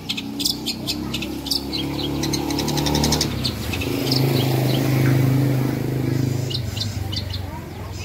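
Long-tailed shrike singing: rapid runs of high, sharp repeated notes in the first three seconds, then scattered single notes. A low engine hum swells under it around the middle and fades near the end.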